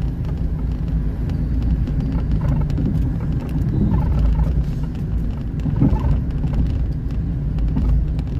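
Car driving along a city street, heard from inside the cabin: a steady low engine and road rumble.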